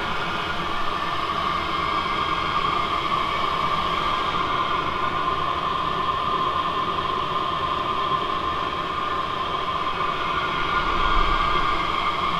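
Diesel air heater running steadily, its blower fan pushing out hot air in an even rushing hiss.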